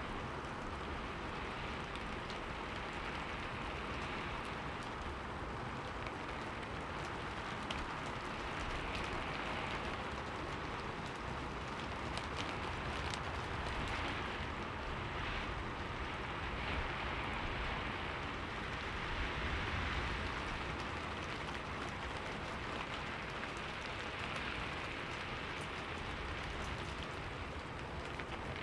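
Steady rain falling on a window, a dense even patter with scattered sharper drop ticks, swelling a little in places.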